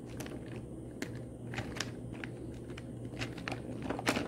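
Light clicks and clatter of coloring supplies being picked through and handled, a dozen or so scattered taps with the loudest near the end, over a low steady hum.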